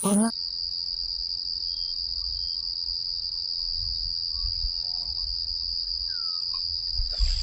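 Insects droning in one steady, unbroken high-pitched tone, with a few faint short chirps over it.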